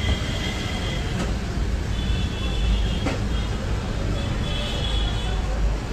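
Street traffic noise: a steady low rumble of road vehicles, with brief high tones twice, about two and about four and a half seconds in.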